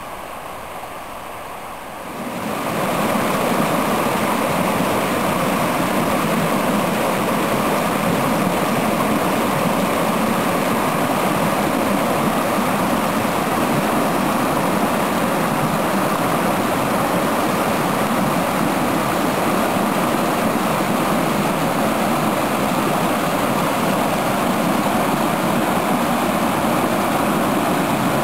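Stream water rushing, a steady even sound that grows louder about two seconds in and then holds steady.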